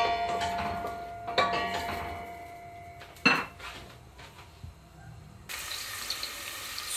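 Clinks and knocks on a stainless steel pot, several ringing metallic strikes in the first three seconds and one sharper knock about three seconds in. From about five and a half seconds, sliced onions sizzle gently in hot olive oil.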